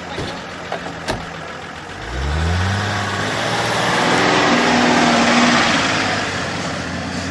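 Engine of a short-wheelbase off-road 4x4 revving up about two seconds in and driving past close by, its pitch rising then holding, with a rushing noise over it that is loudest as the vehicle passes. A few sharp knocks come before the engine picks up.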